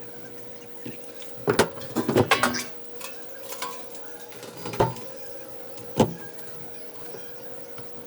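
Several sharp knocks and clatters from handling tools or materials at a workbench: a quick burst of them about a second and a half in, then two single knocks a few seconds apart. A steady electrical hum runs underneath.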